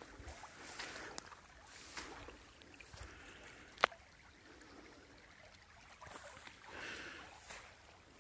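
Faint rush of fast-flowing muddy floodwater in a stream, with soft footsteps on wet grass and one sharp click about four seconds in.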